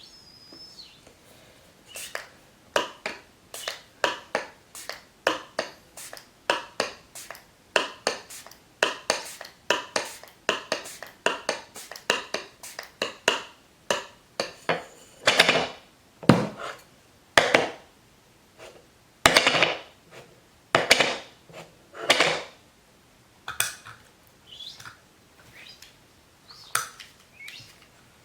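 Foley sound effects: a run of short knocks and clicks, about one or two a second, with several longer noisy strokes in the second half.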